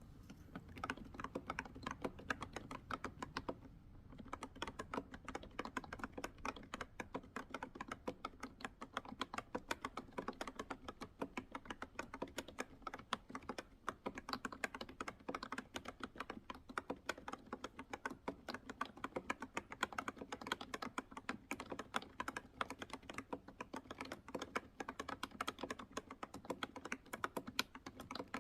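Typing on an Ecto B303 retro mechanical keyboard with freshly lubricated switches: a quick, steady stream of key clacks, with a brief pause about four seconds in. The lubrication has toned down the rattly, chattering key sound.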